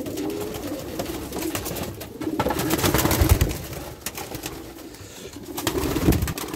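Racing pigeons cooing in a wooden loft, a repeated low cooing, with a louder stretch of rustling and movement from the birds about halfway through.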